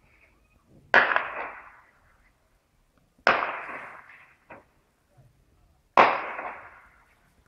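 Three loud gunshots a couple of seconds apart, each followed by about a second of rolling echo, with a fainter single crack between the second and third.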